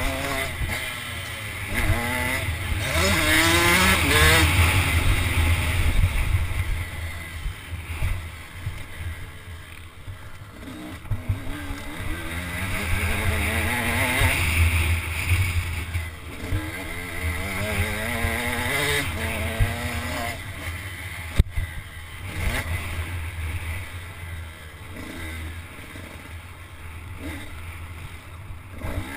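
Dirt bike engine revving up and easing off over and over, its pitch climbing in repeated rising sweeps as the bike accelerates through the gears, heard from a helmet-mounted camera.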